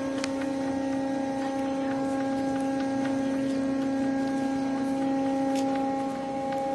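Steady electronic hum with several overtones over a hiss, with faint scattered clicks.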